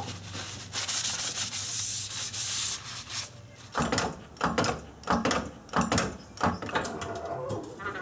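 A fading hiss from brake cleaner just sprayed on the brake parts, then a run of rhythmic creaking strokes, roughly two a second, from a hydraulic floor jack being worked under the car.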